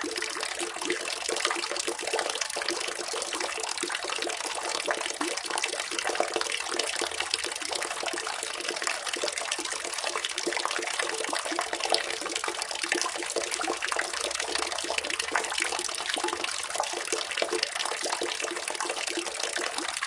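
Water running and splashing steadily, a continuous dense patter of small splashes with no pauses.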